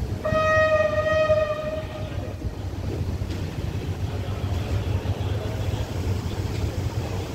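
Diesel locomotive horn sounding one steady blast of about two seconds, over the low rumble of the standing train.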